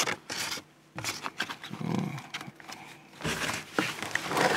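Takeaway food packaging being handled and opened: rustling, with scattered light knocks and clicks. About two seconds in there is a short low wordless vocal sound.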